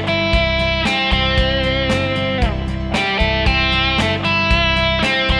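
PRS Custom 22 electric guitar with humbucking pickups, picked in a steady rhythm with an overdriven tone from a Line 6 POD HD amp modeller, with a couple of short downward slides.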